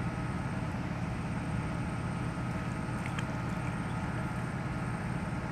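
A steady low engine hum, unchanging throughout.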